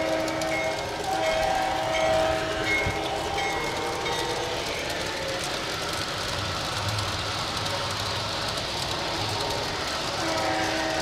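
LGB G-scale model trains rolling on outdoor track with a steady running noise. The locomotive's sound unit gives several signal blasts in the first few seconds, and again near the end.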